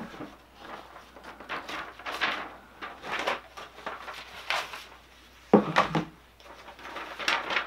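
Cardboard shoe box and its lid being handled, with paper rustling and scraping as a folded receipt is pulled out and opened. A sharp knock about five and a half seconds in is the loudest sound, followed by more rustling near the end.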